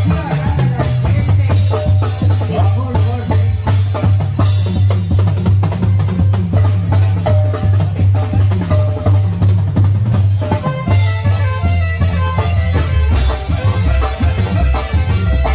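Live tamborazo band playing an upbeat song: a steady drum-kit beat over a deep bass drum, with saxophone and keyboard above it.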